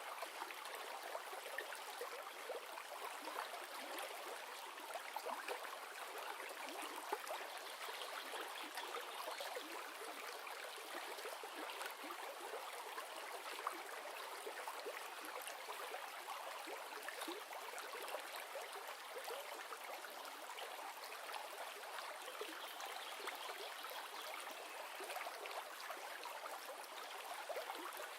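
River water running steadily over rocks, a continuous rushing and babbling with fine splashing detail and little low end.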